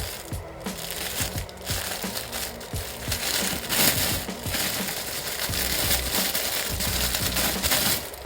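Plastic toy packaging crinkling as it is handled and torn open, loudest from about three seconds in, over background music.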